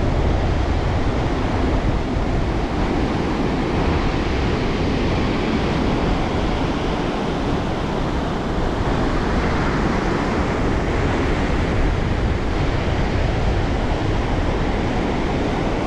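Pacific Ocean surf breaking on the beach, a steady rushing noise, with wind rumbling on the microphone.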